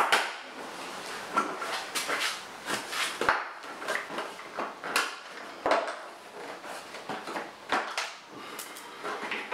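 Irregular clicks, knocks and light clatter of hands and tools working a sport bike's plastic fairing panels and their fasteners during fairing removal.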